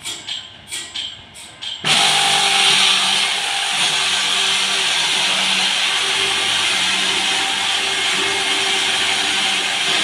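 Large two-man Sharpex electric chainsaw, its motor at one end of a long bar: after a couple of seconds of rhythmic tapping about twice a second, the saw starts suddenly and runs loud and steady as its chain cuts down into a big log.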